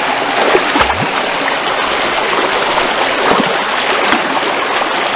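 River water flowing steadily, with a couple of brief splashes, one about a second in and another just past three seconds.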